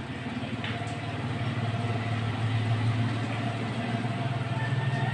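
Steady low drone of an idling engine, getting louder about two seconds in.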